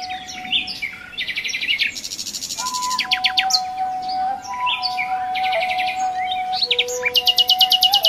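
Songbirds chirping and singing in quick trills over a ney flute that plays slow, long held notes, stepping between a few pitches. A fast, rattling trill takes over near the end.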